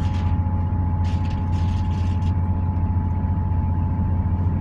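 Cabin running noise of a Hitachi Class 800 electro-diesel train under diesel power: a steady low rumble of the underfloor engines and wheels on the rails, with a thin steady whine above it. A few short rattles come through about a second in.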